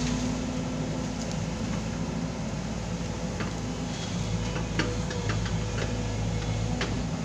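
Foton crawler excavator's diesel engine running steadily under hydraulic load as the boom swings and the bucket reaches out. A few short, sharp clicks and cracks come through in the middle.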